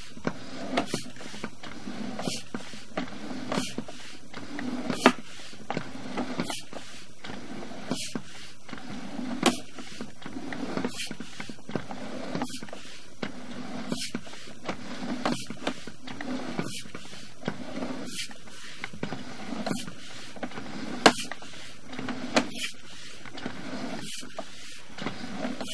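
Sewer inspection camera's push cable being pulled back out of the line and fed onto its reel. It is a low rumbling hum that swells in even strokes, about one every second and a half, with a sharp click between strokes.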